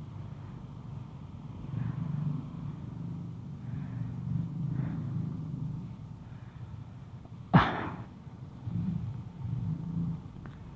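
Low rumble of a Honda ADV150 scooter ridden slowly through traffic, swelling a few times. About three-quarters of the way through there is one sudden loud thump.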